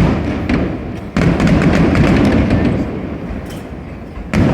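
Aerial fireworks shells bursting: three booms, at the start, about a second in and near the end, each followed by a long rolling rumble that slowly dies away.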